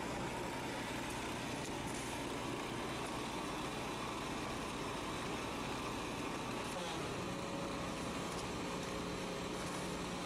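Small gasoline engine of a walk-behind roof cutter running steadily while its blade cuts through an old built-up gravel roof.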